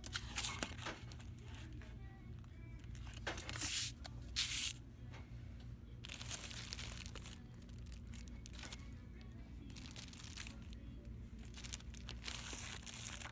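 Shop ambience: background music over a steady low hum, with rustling and crinkling several times, loudest about four seconds in.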